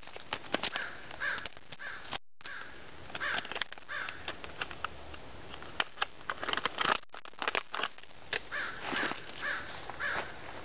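Crows cawing over and over, mixed with sharp clicks and crinkles from a multi-tool's packaging being opened. The sound drops out briefly twice.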